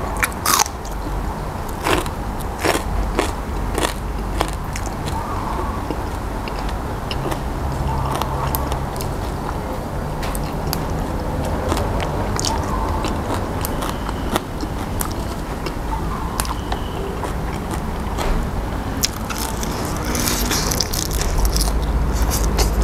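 Close-up crunching and chewing of crisp raw vegetables and fresh herb leaves, with several sharp bites in the first few seconds, then softer, steady chewing. A steady low hum runs underneath.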